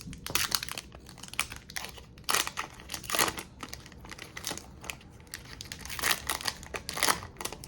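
Foil Pokemon booster pack wrapper being torn open and crinkled by hand: irregular crackling and crumpling with several louder rips.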